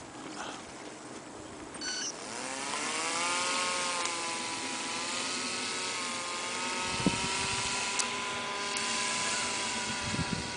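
Small motor and propeller of an RC paraglider trike, throttling up about two seconds in with its pitch rising, then running at a fairly steady, slightly wavering pitch. Brief low rumbles come in about seven and ten seconds in.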